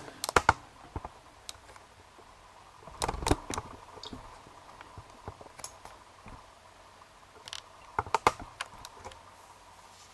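Light clicks and taps of small metal lock pins and tools being handled on a work surface, in three short clusters: just after the start, about three seconds in, and about eight seconds in.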